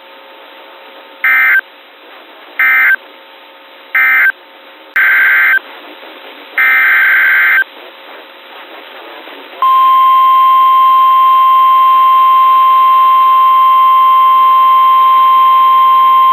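Emergency Alert System SAME data tones on NOAA Weather Radio. Three short buzzy data bursts, then two longer ones, close out the previous warning and begin the next. About halfway through, the steady, loud 1050 Hz warning alarm tone starts, announcing a new severe thunderstorm warning.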